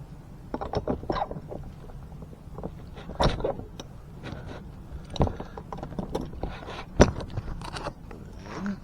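Irregular metal knocks and clunks as the parts of an off-road floor jack and its height extension adapter are handled and set in place. The loudest come about three, five and seven seconds in.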